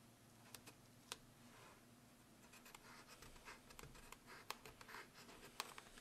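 Faint scratching, rustling and light clicks of a hand working inside a motorcycle helmet, pressing a stick-on pad into the liner, over a low steady hum. A few sharp clicks come in the first second, then the scratching and clicking grow denser from about halfway in.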